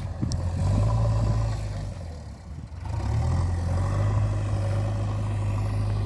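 Diesel engine of a JCB 3DX Super backhoe loader running steadily, easing off about two seconds in, then revving back up.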